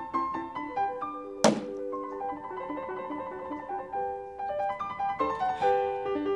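Piano music plays throughout. About one and a half seconds in, a single sharp thunk: a thrown knife sticking into a wooden target board.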